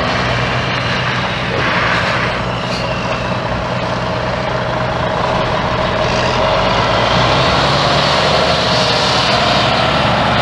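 The Cummins N14 14.0L inline-six turbo diesel of a 2002 International 9100i semi truck running with a steady low engine note, and a brief hiss about two seconds in.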